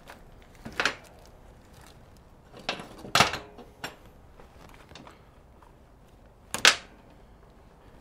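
Metal hand tools clattering as they are rummaged through and handled, with three sharp clanks about a second in, around three seconds and near seven seconds, and lighter clicks in between.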